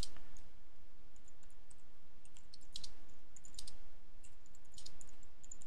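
Computer keyboard being typed on: irregular key clicks over a low steady hum.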